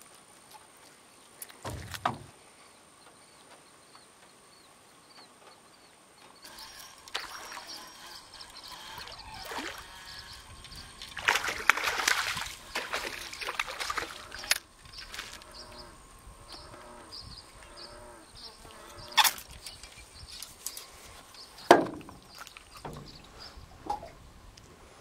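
Hooked largemouth bass thrashing and splashing at the water's surface as it is reeled up beside a boat. The splashing comes in a burst of about three seconds near the middle, with lighter water noise before it and a few sharp knocks.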